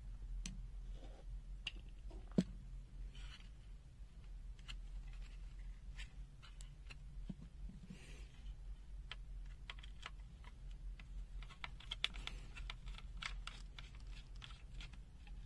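Scattered light clicks, taps and scrapes of a handheld digital multimeter's plastic case and circuit board being handled and taken apart, with a sharp click about two and a half seconds in and a quicker run of clicks near the end. A steady low hum sits underneath.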